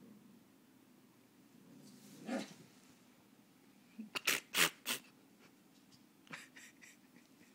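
Dogs squabbling: a short low grumble about two seconds in, then three sharp barks in quick succession near the middle, with a few fainter ones later.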